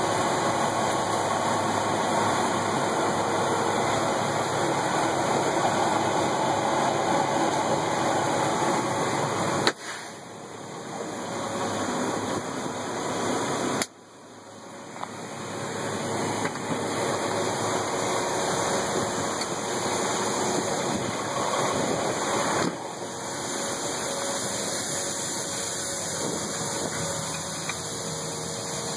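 Steady rushing noise of corn pouring out of a hopper grain trailer into an elevator pit, with a truck's diesel engine idling underneath. Two sharp clicks, about ten and fourteen seconds in, are each followed by a sudden dip in level that climbs back.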